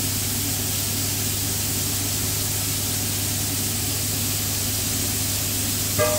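Freshly added potato chips frying in a deep-fat fryer, the oil bubbling up in a steady loud hiss over a constant low hum. A short metallic clink comes at the very end.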